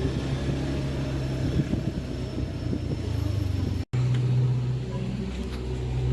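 Steady low engine hum of a running vehicle, cut off abruptly for an instant a little before the four-second mark and then carrying on.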